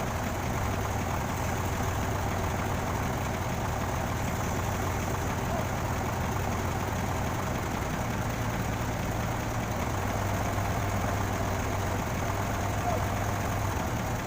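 Truck crane's engine idling steadily.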